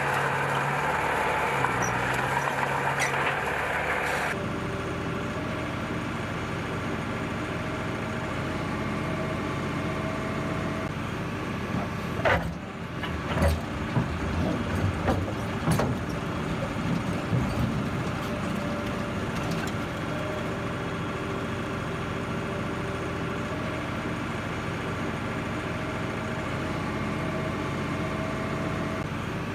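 For the first four seconds a sand and gravel screening plant's vibrating screens and conveyors make a dense rattle. Then a motor grader's diesel engine runs steadily, with a string of knocks and clanks about twelve to eighteen seconds in.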